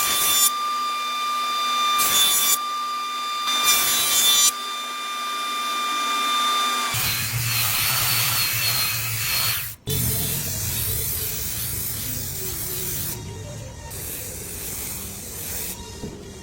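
Electric power saw running with a steady high whine, with short louder spells of cutting noise every second or two. About seven seconds in, the saw gives way to background music, which breaks off suddenly for a moment near ten seconds.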